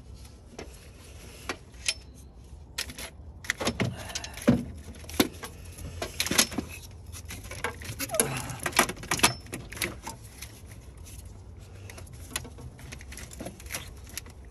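Irregular clicks, knocks and light rattles of hand work on a car's plastic coolant pipe, its clips and nearby parts in the engine bay, busiest in the middle of the stretch and tapering off near the end.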